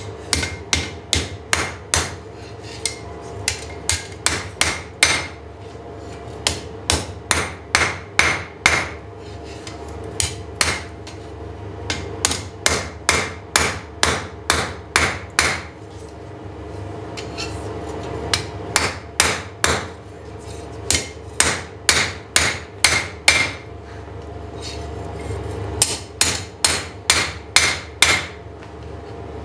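Hammer blows on steel on an anvil, coming in runs of about two to three strikes a second with short pauses between runs, each blow ringing. A steady low hum runs underneath.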